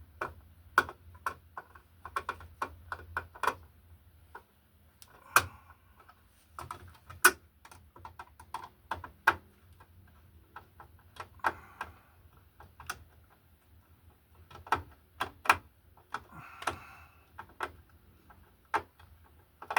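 Irregular sharp clicks and taps of hand work with small tools and parts, a few louder knocks among them.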